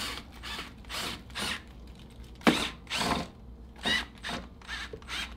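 Cordless drill or driver run in short bursts on the trigger, about two a second, its motor pitch rising in each burst. A sharp knock about halfway through is the loudest sound.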